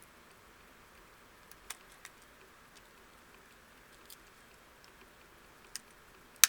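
Faint, scattered clicks and ticks of a small Phillips screwdriver working a screw into a plastic car alarm remote transmitter case, with one sharper, louder click near the end.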